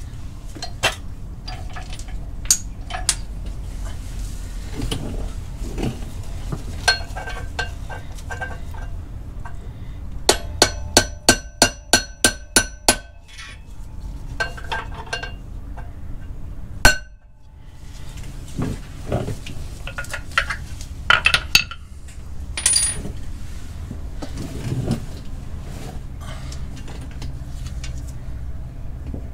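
Light hammer taps on metal as a clutch part is tapped into place, with scattered tool clinks. About ten seconds in comes a quick, ringing run of about a dozen taps, roughly four a second, and a few seconds later one sharper, louder strike.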